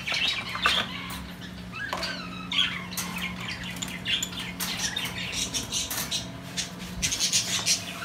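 A flock of caged budgerigars chirping and squawking continuously, with a steady low hum underneath.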